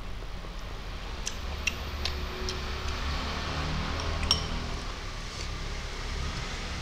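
Close-up eating sounds: a scatter of sharp clicks and ticks as a metal spoon works in a glass bowl of greens and a handful of greens is eaten, the loudest click a little after four seconds in.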